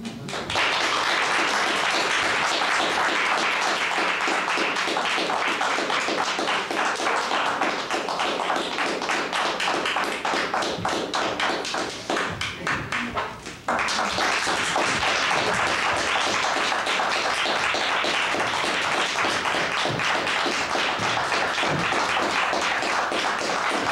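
Theatre audience applauding at the end of a play: dense, steady clapping that breaks out suddenly as the stage goes dark. It dips briefly about twelve seconds in, then comes back at full strength.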